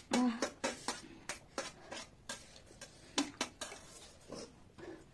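Forks clinking and scraping against plates while noodles are eaten: irregular short clicks, several a second.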